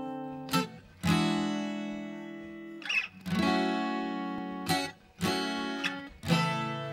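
Background music: an acoustic guitar strumming a few chords, each struck and left to ring out and fade before the next.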